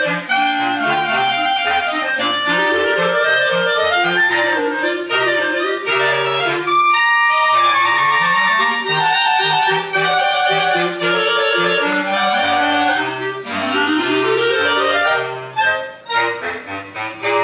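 Clarinet quartet playing, quick short notes in the upper clarinets over a low, stepping bass line, with fast upward runs sweeping up several times. The sound thins and dips briefly near the end before the full ensemble comes back.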